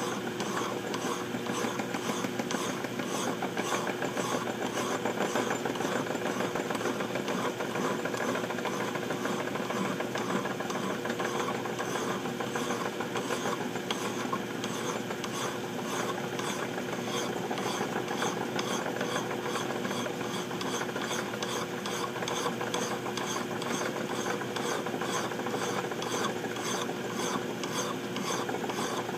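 Hand file rasping in light, repeated strokes against a pipe maker's spoon bit turning in a small metal lathe, over the lathe's steady motor hum. The filing is smoothing the bit's ball-nosed profile and taking down the file marks.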